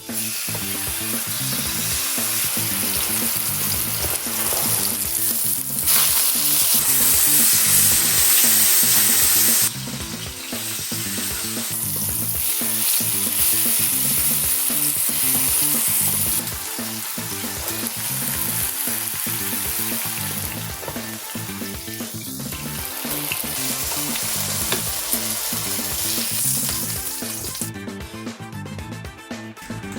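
Food frying and sizzling in a hot pan while it is stirred, with a steady hiss that jumps in level a few times.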